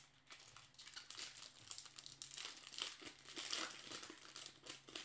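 Crinkly foil wrapper of a 2016 Bowman baseball card pack being torn open and crumpled by hand: a dense run of crackles, loudest in the middle.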